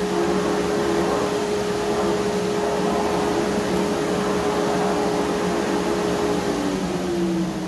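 Table saw running at speed with a steady hum, then switched off near the end, its pitch falling as the blade spins down.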